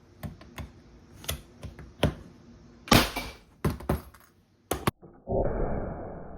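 Scattered clicks and knocks of a Ramset powder-actuated nail gun and a padlock being handled and set up, with a sharp knock about three seconds in. A sudden burst of noise comes near the end and dies away over a second or so.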